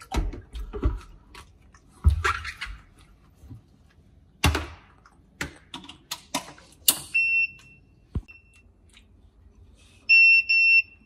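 BlueStone soy milk maker being set up: several plastic-on-steel clunks as its motor head is seated on the jug and the plug goes into the socket, then the machine's electronic beeps. It beeps once as it is powered up, gives a short beep a second later, and sounds three quick beeps near the end as its panel buttons are pressed.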